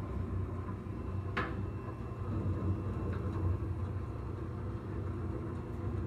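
A steady low rumble, with one short sharp crack about a second and a half in: a spinal joint popping as it is adjusted.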